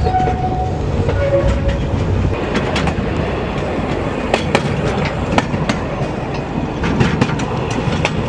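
Narrow-gauge passenger train running, heard from its open-sided carriage: a steady rumble of the wheels on the track, with sharp clicks and knocks, most of them in the middle and near the end.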